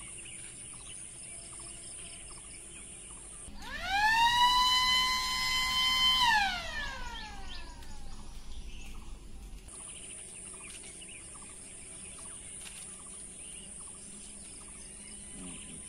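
Electronic alarm siren of an elephant early-warning device sounding one wail about four seconds in: it rises in pitch, holds for about two seconds, then falls away, the alert that an elephant is approaching. Birds chirp and a steady high hiss runs behind it.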